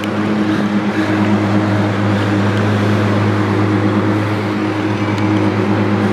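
De Tomaso P72 supercar engine idling steadily, an even deep hum with no revving.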